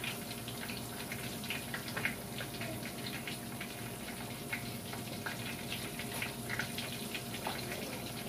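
Flour-coated chicken breasts frying in hot oil in a cast iron skillet: a steady sizzle dotted with frequent small crackles and pops.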